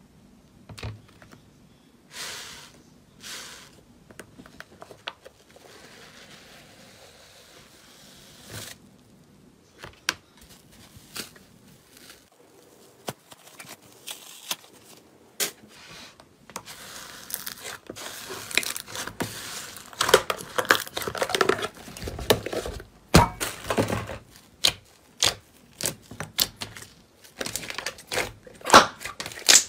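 Hands working slime: a white top layer over pink slime is torn open and the slime is squeezed and folded, giving tearing, crinkling and crackling sounds. The sounds are sparse clicks at first and grow denser and louder through the second half.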